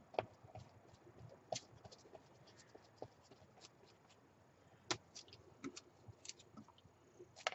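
Faint, irregular scratches and small taps of a glue brush and tissue paper being worked onto a journal cover.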